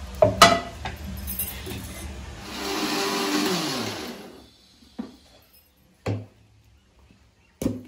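Electric mixer grinder with a stainless steel jar run in a short burst of about two seconds, grinding cooked tomato chutney; its motor whine falls away as it is switched off. A sharp clink of the steel jar comes near the start, and a few short knocks follow the grinding.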